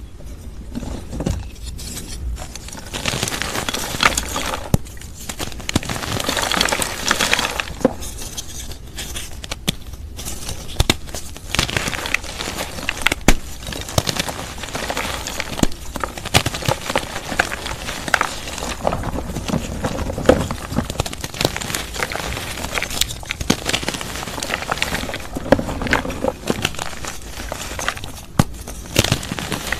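Dried, reformed gym chalk paste crushed by hand in a bowl: a continuous crumbling crackle, dotted with many sharp snaps as the chalk chunks break apart.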